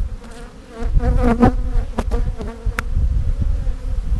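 Honeybees from a defensive hive buzzing loudly close around the microphone, the pitch wavering as individual bees fly past, with a couple of sharp clicks in the second half.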